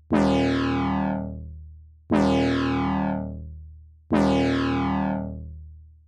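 A synthesized tone strikes three times, about two seconds apart. Each strike starts sharply and dies away, with a downward sweep running through it.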